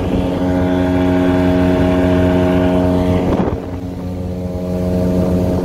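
Mercury 50 hp outboard with a water-jet unit running steadily at cruising speed, planing an inflatable boat loaded to just over a tonne, with water rushing along the hull. The engine's pitch holds steady; there is a short rush about three seconds in, after which it runs a little quieter for a second or so.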